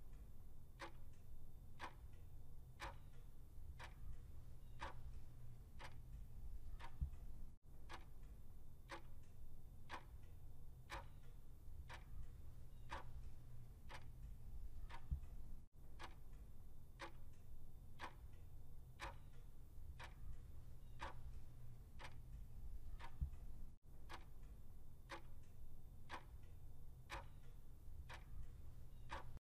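Clock ticking about once a second as a countdown-timer sound effect, over a faint low hum.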